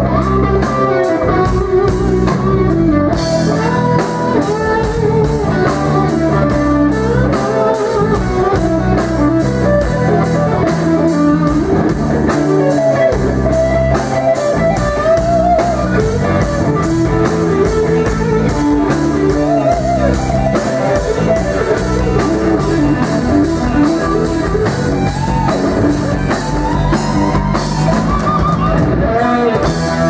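Live rock band playing an instrumental passage: an electric guitar plays a lead line with bent notes over bass guitar and a steady drum-kit beat.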